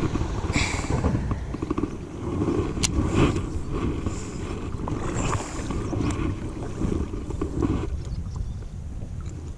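Wind buffeting the microphone of a chest-mounted action camera: a rough, gusting low rumble, with a few short knocks from handling the kayak paddle and fishing gear. The rumble eases off near the end.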